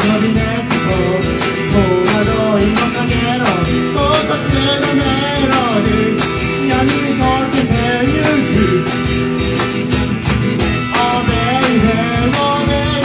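Live acoustic music: a man singing over a strummed acoustic guitar, with a cajón played by hand keeping a steady beat.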